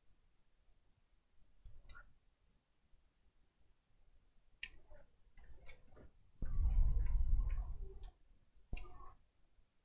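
Handling noises on a repair bench: scattered light clicks and taps, then a louder low rumbling handling sound lasting under two seconds about six and a half seconds in, and one more click near the end.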